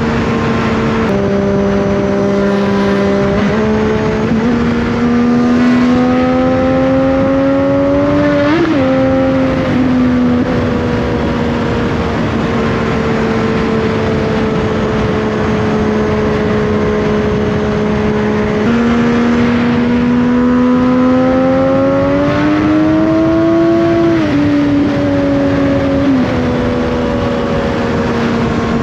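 Triumph Daytona 675's inline three-cylinder engine running at steady cruising revs, with wind rush. Twice the note rises under acceleration and then drops sharply at an upshift, about a third of the way in and again near the end.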